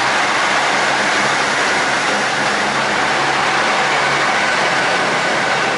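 KiHa 85 series diesel railcars' Cummins engines running at full throttle as the train pulls past, a loud steady engine drone with rushing wheel and rail noise.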